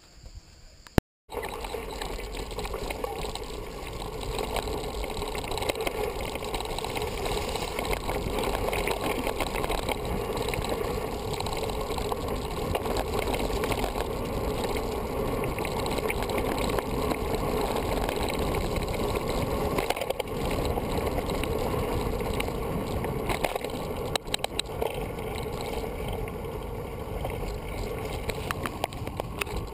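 Mountain bike rolling fast down a dirt and stone forest trail: steady tyre noise with continual rattling and clattering of the bike, starting suddenly about a second in.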